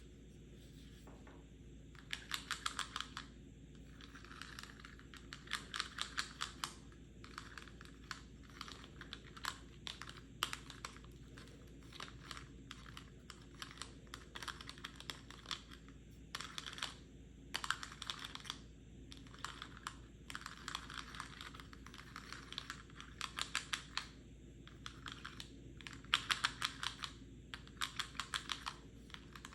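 Fingernails tapping quickly on a plastic pill box, in rapid runs of light clicky taps with short pauses between them.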